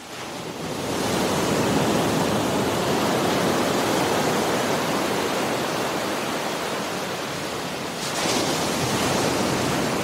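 Ocean surf ambience: a steady wash of breaking waves that swells in over the first second and rises again with a breaking wave about eight seconds in.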